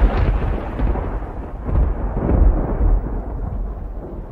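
Thunder rumbling and rolling, swelling a few times as it slowly dies away.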